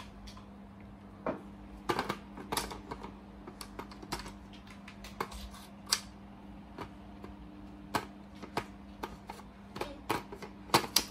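Irregular plastic clicks and knocks from a cordless-tool battery charger and battery pack being handled and fitted together to charge, loudest in a quick cluster near the end, over a steady low hum.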